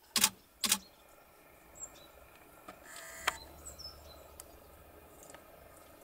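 Camera shutter firing twice in quick succession, each a sharp double click, near the start. Then a few faint, high bird chirps.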